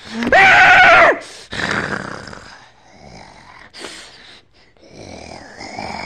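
A person voicing a creature screech for a toy monster: one high, held cry of under a second at the start, then quieter scuffling noises.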